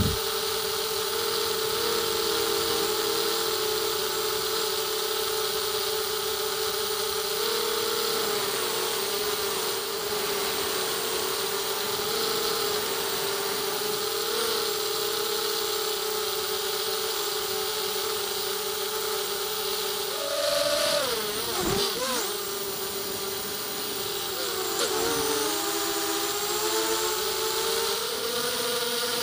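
Mini FPV quadcopter in flight, heard from on board: its four ZTW Black Widow brushless motors spinning 5-inch HQProp propellers give a steady high-pitched buzzing whine that wavers with the throttle. About two-thirds of the way through, the pitch swings up and back down sharply as the throttle is punched and cut.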